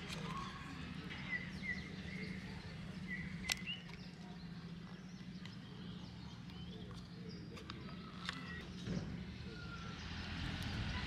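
A few sharp clicks from a Leica M3 rangefinder camera being handled as its baseplate is unlocked for loading film, over short bird chirps and a steady low hum.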